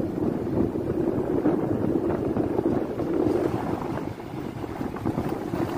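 Motorbike engine running under way, with wind rushing over the microphone. It gets a little quieter about four seconds in.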